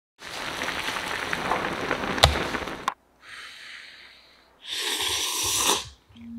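Three long airy sounds of a person eating steaming ramen noodles from chopsticks, the middle one quieter, with a sharp click about two seconds in.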